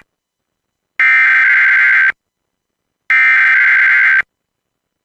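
Emergency Alert System SAME header data bursts from a broadcast EAS encoder: two identical buzzing digital bursts of about a second each, a second apart, the last two of the three header repeats that open an automatic weekly test.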